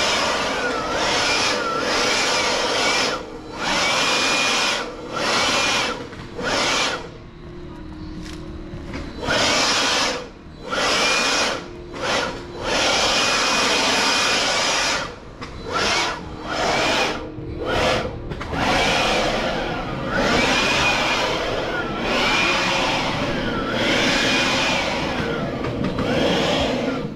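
A small electric motor running in repeated bursts, switched on and off many times, its pitch rising and falling as it runs.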